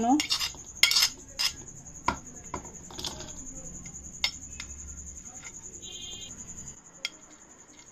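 Steel spoon tapping and scraping against a plate as chopped cucumber is scooped into a bowl: a scattering of light clinks, more of them in the first few seconds.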